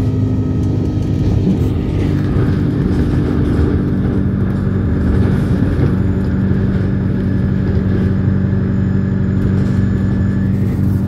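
Alexander Dennis Enviro 200 single-deck bus under way, heard from inside the passenger cabin: a steady engine drone over tyre and road noise. The engine note changes about two seconds in.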